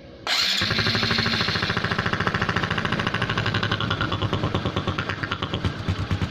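Honda Supra X 125's single-cylinder four-stroke engine idling with a rough, snoring 'ngorok-ngorok' note instead of running smoothly; it comes in suddenly just after the start and then pulses evenly. The mechanic puts the roughness down to too little intake vacuum.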